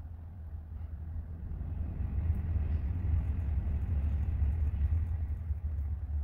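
Low, steady background rumble that swells about two seconds in and eases near the end, like traffic going by.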